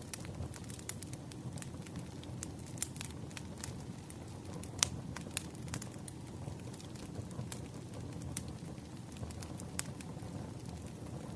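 Wood fire burning: a steady low rumble with scattered sharp crackles and pops, the loudest pop a little before the middle.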